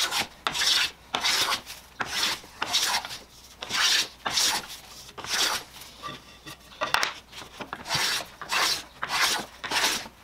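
Vintage Stanley No. 4 smoothing plane taking shavings off a hardwood board, quick repeated strokes at about two a second. There is a pause midway with a single light knock before the strokes resume. The planing smooths away the faint scallops left by a helical-cutter planer and jointer.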